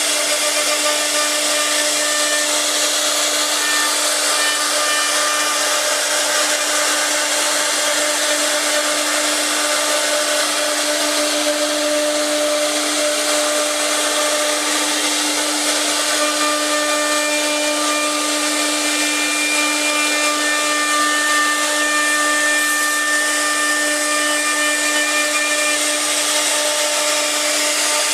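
CC-B1325B CNC wood router's spindle running while carving wood: a steady whine over a constant hiss of the cut, with fainter higher tones coming and going.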